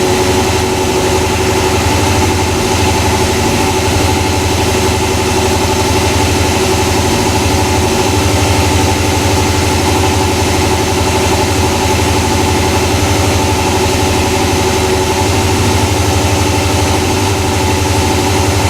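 Yamaha YZF-R6 inline-four engine idling steadily.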